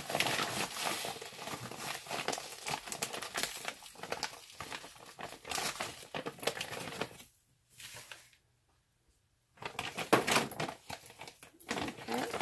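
Plastic bag of Epsom salt crinkling as the coarse salt is scooped and poured into a plastic mixing bowl, a dense run of rustles and grainy clicks. It goes nearly silent for about two seconds a little past the middle, then the rustling resumes.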